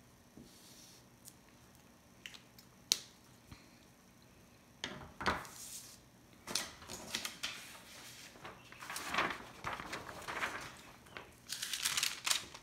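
A sheet of tracing paper rustling and crinkling in repeated bursts as it is lifted and handled, starting about five seconds in and loudest near the end. Before that, a few light clicks, one sharp click about three seconds in.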